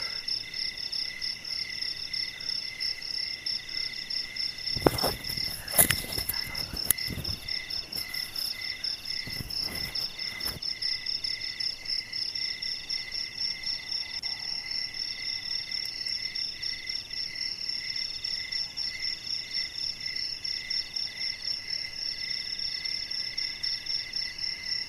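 A night chorus of forest insects chirring steadily in several pitches, one of them pulsing rapidly and evenly. A cluster of knocks and rustles close to the microphone falls between about five and ten seconds in and is the loudest thing heard.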